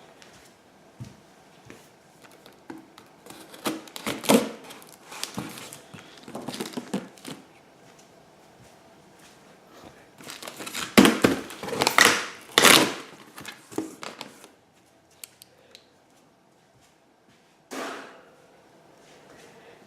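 Cardboard shipping box being opened: packing tape cut and torn, flaps and packing material rustling and crinkling, with a few knocks. The loudest rustling comes about halfway through, then it goes nearly quiet for a few seconds before one last short rustle.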